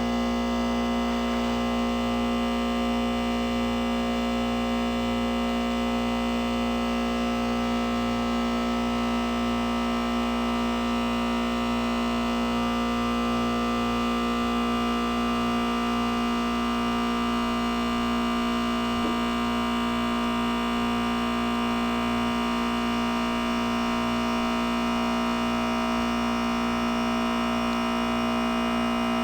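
2008 Goodman heat pump outdoor unit running in defrost mode: a steady hum made of several steady tones over a low rushing noise, unchanging throughout.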